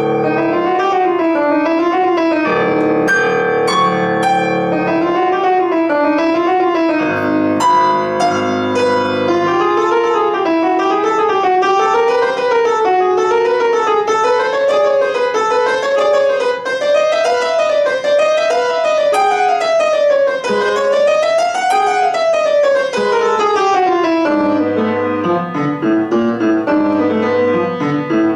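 Solo piano playing fast runs that rise and fall in waves over the keyboard, with low bass notes underneath for the first several seconds and again near the end.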